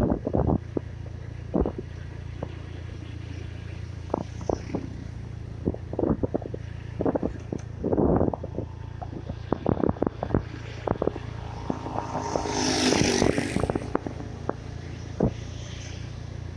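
A vehicle travelling along a road: a steady low engine drone with frequent short knocks and rattles. A louder rush of noise comes about three-quarters of the way through.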